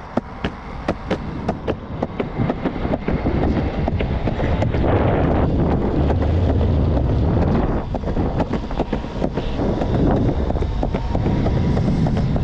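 Electric skateboard rolling and picking up speed: regular clicks that come quicker and quicker, then a steady rumble of the wheels on the road with wind noise on the microphone.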